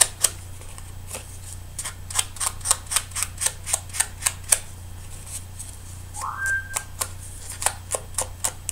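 Quick light taps of an ink applicator dabbed along the edge of a cardstock panel, about four a second, in two runs. A short high tone rises and holds briefly between them.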